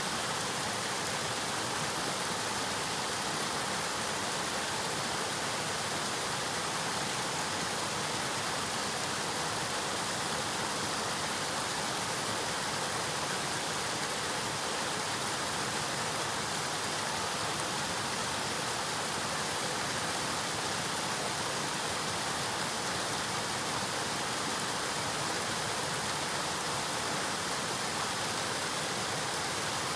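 River water flowing and rushing, a steady even hiss with no breaks.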